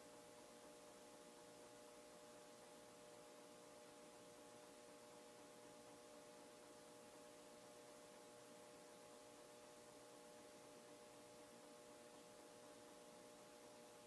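Faint, steady hum with a few steady tones from a 1991 Hunter Outdoor Original ceiling fan's oil-bath motor running at a constant speed.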